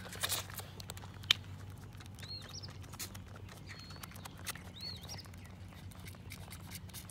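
Pygmy/Nigerian Dwarf mix goat kid sucking at a feeding bottle: a steady run of small wet clicks and smacks, with one sharp click about a second in. A bird chirps briefly twice.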